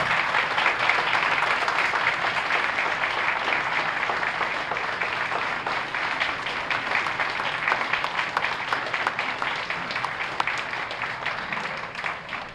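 Audience applauding: a roomful of people clapping steadily, tapering off toward the end.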